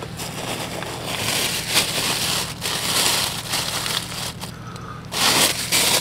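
Rummaging in a backpack: fabric rustling and plastic crinkling, with a short, louder crinkle about five seconds in.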